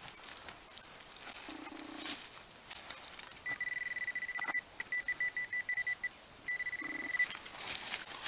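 Hands and a digging tool scrape and dig in loose forest soil. About halfway through, a metal detector gives a high electronic tone over the target in the hole: steady at first, then rapid pulsing, then steady again.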